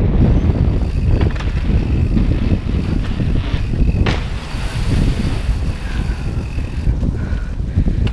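Wind buffeting an action camera's microphone over the rumble of mountain bike tyres rolling on pavement, with a sharp click about four seconds in.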